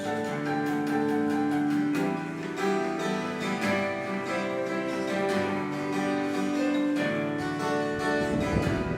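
Acoustic guitar playing chords, picked and strummed, instrumental with no voice; the playing grows fuller near the end.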